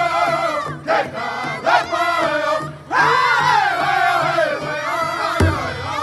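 Powwow drum group singing together in high, sliding voices around a big hide drum, with a short break about halfway through. Near the end, heavy beats on the drum come in.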